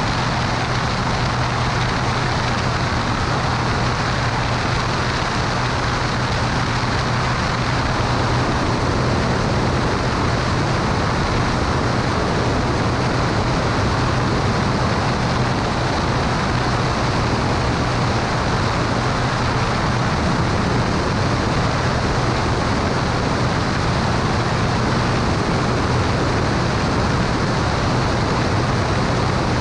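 Cessna 210 Turbo Centurion's turbocharged flat-six engine and propeller droning steadily under power, a constant low hum over a broad rush of engine and air noise.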